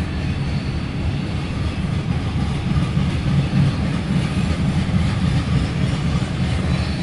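Loaded CSX coal train passing close by at a grade crossing: a steady, heavy low rumble of the train rolling on the rails.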